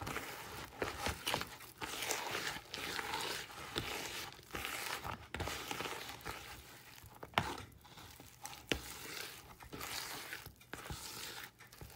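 Soft ground-hazelnut cookie dough being stirred and scraped around a bowl: irregular scraping strokes with no motor running.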